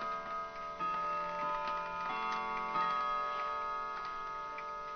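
Mechanical clock chimes ringing in long overlapping tones, with new notes struck about a second in and again around two to three seconds in, over the ticking of clock movements.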